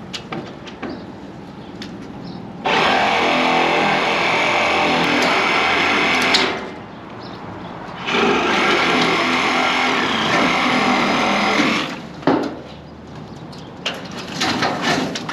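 Power saw cutting into a tree's limbs, run in two bursts of about four seconds each, with clicks and handling noise between and after the cuts.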